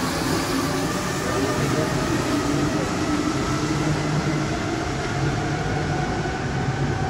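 Alstom-Matra MPL85 rubber-tyred metro set 321-322 pulling out of the station and running off into the tunnel: a steady running noise with several whining tones that slowly fall in pitch. This set, like 323-324, makes a traction noise different from the rest of the fleet.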